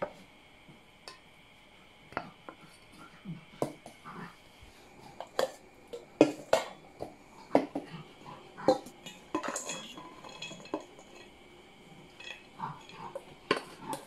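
Stainless steel mixing bowls clinking and knocking as they are handled and set down. The sharp taps and short ringing clatters come at irregular intervals, thickest in the middle.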